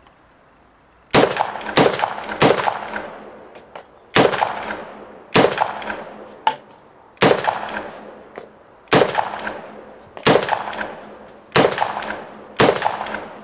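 Ruger Ranch Rifle, a semi-automatic Mini-14, fired ten times: a quick string of three shots, then seven more spaced about one to two seconds apart. Each shot is trailed by echo.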